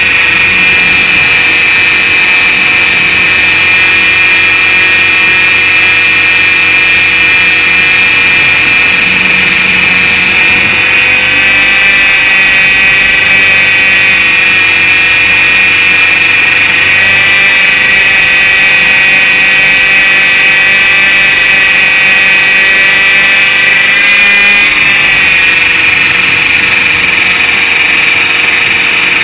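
Align T-Rex 450 Pro electric RC helicopter heard from a camera on its own frame: a loud, steady high-pitched whine from the motor and drive gears with the rotor's whir, shifting slightly in pitch as the throttle changes.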